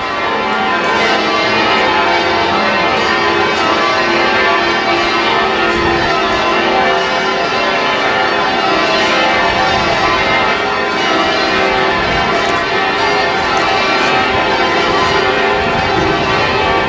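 A ring of church bells being rung down in peal: the full-circle bells keep striking in turn, in an unbroken, dense clangour of many overlapping tones, as they are gradually lowered from the mouth-up position.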